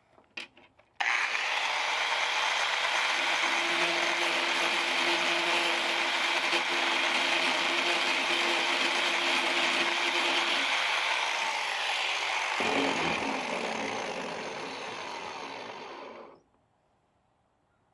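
A few clicks, then a Hilti AG 450-7 angle grinder with a cutoff wheel starts about a second in and runs steadily while it grinds the end of a carbon arrow shaft down to length. Near the end it is switched off and spins down gradually to a stop.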